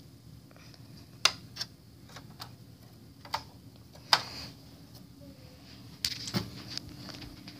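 Scattered sharp plastic clicks and taps from Lego bricks and panels being handled, the loudest about four seconds in and a quick cluster of them near the end.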